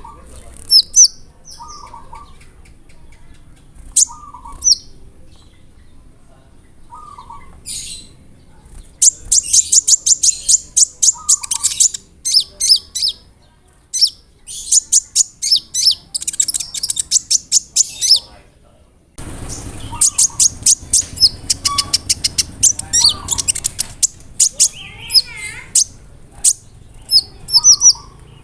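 Konin (kolibri ninja) sunbird singing fast rolls of sharp, very high chip notes, with scattered short, lower notes between the rolls. The background changes abruptly a little after halfway, as if the recording is spliced.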